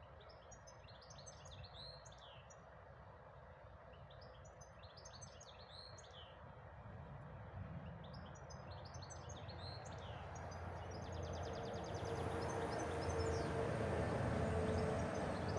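A songbird singing short, repeated phrases about every three to four seconds, ending once in a fast trill. Beneath it a low rumble swells steadily through the second half until it is louder than the birdsong.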